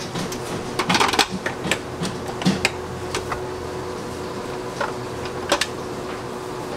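Scattered clicks and taps of baking tools being handled, several in a quick cluster about a second in, then single ones, over a steady low hum.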